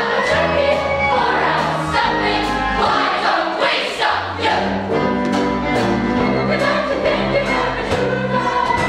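An ensemble chorus sings a show tune over instrumental accompaniment, with a bass line moving in steady steps from note to note.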